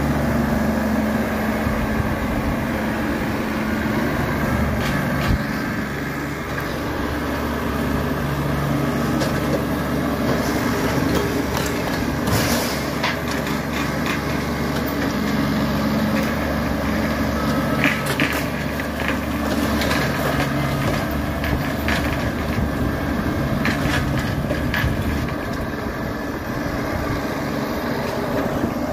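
Compact farm tractor engine running steadily, its pitch rising and falling as the front loader works, with scattered knocks and clatters of bricks coming down from a wall being pushed over, most of them in the middle of the stretch.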